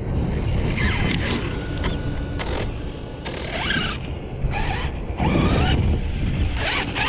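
Redcat Kaiju RC truck run hard at full throttle: its brushless motor whine rises and falls in several short bursts over a steady low rumble of tyres and drivetrain.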